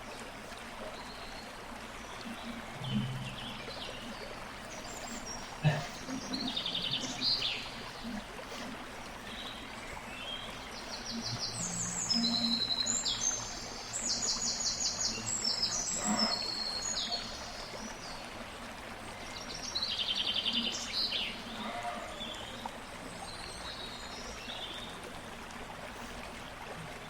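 Birds chirping in short repeated trills over a steady water-like rush, with one sharp click about six seconds in.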